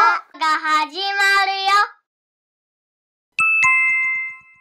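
A child's voice sings a short intro jingle in held, stepping notes, ending about two seconds in. After a pause, a two-note chime strikes near the end, a higher ding then a lower dong, both ringing out.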